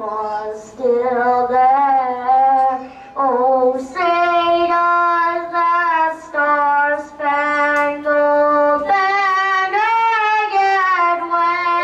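A high solo voice sings a slow melody, holding each note for one to two seconds with vibrato and taking short breaths between phrases.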